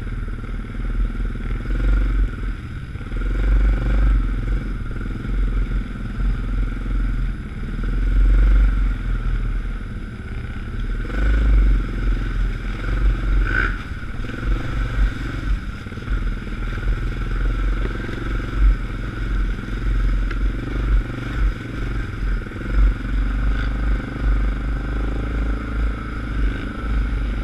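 ATV engine running while riding a rough, rutted trail, the level rising and falling with the throttle and bumps, with some clattering.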